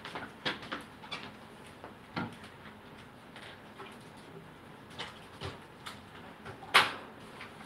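Scattered clicks and knocks of objects being handled, the loudest a sharp knock near the end.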